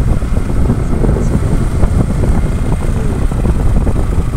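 A moving road vehicle's engine and road noise, a steady low rumble, with wind buffeting the microphone.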